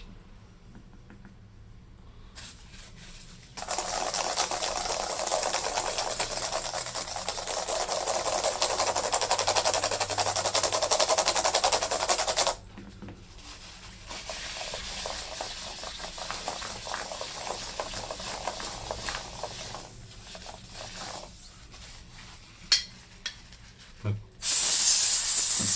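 Compressed air hissing in long blasts into a laptop keyboard to drive cleaning alcohol down under the sticking keys. A loud blast runs about nine seconds, then a quieter stretch follows. A few sharp clicks come before another loud blast near the end.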